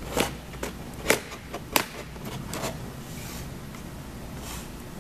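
A motherboard being handled in its cardboard box: a few sharp taps and knocks in the first two seconds, then softer scuffs of the board and packaging.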